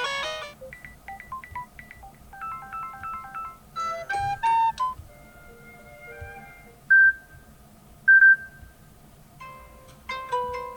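Samsung Galaxy M53 alarm tones playing one after another: a series of short melodic snippets, each cut off after a second or two as the next tone starts.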